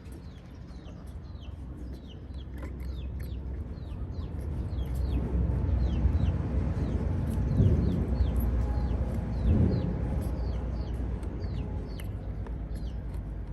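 Birds chirping: many short, high chirps that fall in pitch, a few a second throughout. Underneath is a low rumbling noise that grows louder between about five and ten seconds in.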